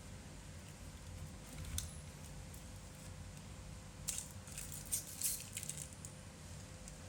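Light clicks and rustling of small tools and parts being handled during a phone battery repair: a brief click about two seconds in and a busier cluster around four to six seconds, over a steady faint electrical hum.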